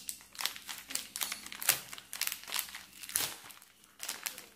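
A small clear plastic bag crinkling as fingers handle it, in short, irregular crackles.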